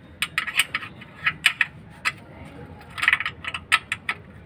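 Small metal wrench clicking and clinking on the bleeder screw of a van's clutch slave cylinder as it is fitted and worked, in a run of sharp metallic clicks in irregular clusters.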